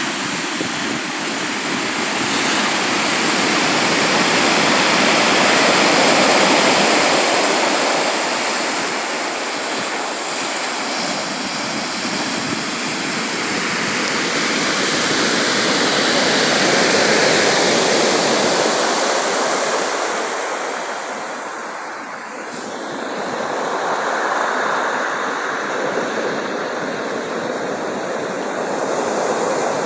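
Sea waves breaking and washing on the shore in a steady rush of surf, swelling and easing slowly, with louder surges about six seconds in and again past halfway.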